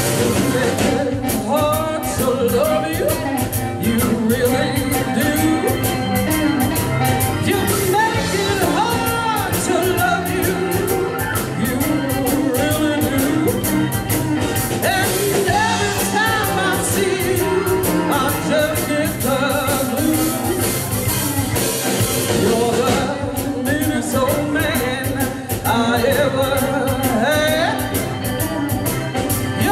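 A live blues band playing an instrumental passage: amplified harmonica playing lead over guitar, drum kit and keyboard.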